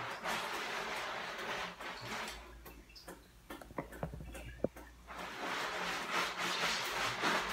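Soapy bath sponge scrubbing over wet skin in quick rasping strokes. The scrubbing dies down for a couple of seconds in the middle, where a few soft knocks are heard, then starts again.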